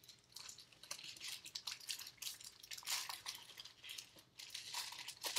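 A trading card pack wrapper being torn open and crinkled in the hands: a run of quick, faint crackling rustles.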